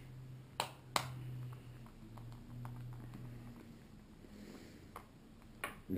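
Small plastic GoPro mount parts being handled and snapped together by hand: two sharp clicks about half a second and a second in, then lighter clicks and handling noise, over a low hum.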